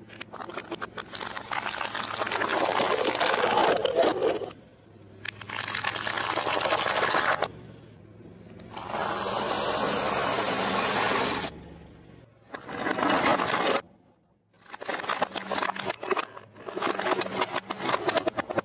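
Car tyre rolling over and crushing things one after another: crackling, crunching bursts of breaking plastic toys and crunchy food. There are about five separate bursts with short gaps between them.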